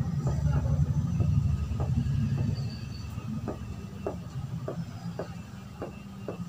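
Marker pen writing on a whiteboard, a run of short scratchy strokes and taps. Under it, a low rumble that fades after about two and a half seconds.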